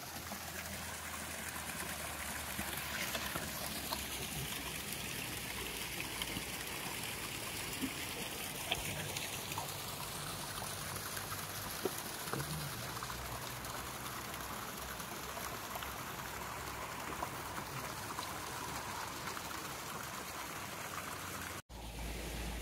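Small hillside stream trickling steadily, with a few faint ticks.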